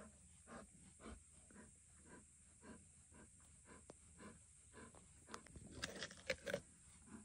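Young lioness gnawing on a whole watermelon, breathing in short, regular pants about twice a second. About five seconds in, a burst of sharp crunches as her teeth bite into the rind.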